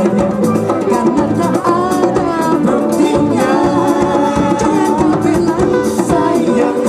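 Live band playing an upbeat, jazzy dance song: electric bass, electric guitar and hand drums under a sung melody.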